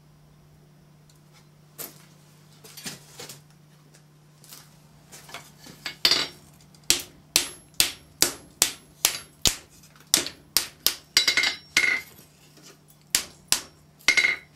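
Hand hammer blows on red-hot flat bar steel lying on an anvil, rolling the strip into a truncated cone. A few light knocks come first, then from about six seconds a steady run of sharp blows, about two to three a second, some with a short metallic ring.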